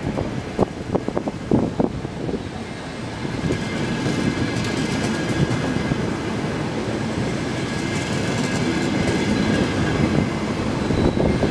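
ETR 500 'Y1' high-speed test train pulling out past the platform: its wheels rolling and clicking over the rails, with a faint high whine. The sound grows steadily louder as the train gathers speed.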